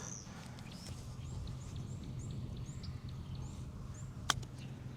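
A putter strikes a golf ball once, a single sharp click about four seconds in. A bird calls throughout with short chirps that fall in pitch, repeated about twice a second.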